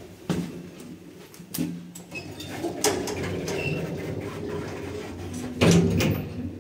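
Passenger lift's two-panel sliding car doors running along their track, with a few sharp clicks early on and a heavy thump near the end.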